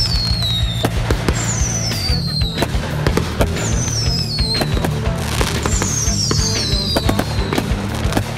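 Aerial fireworks bursting one after another with sharp bangs and crackling, over a song with a steady beat.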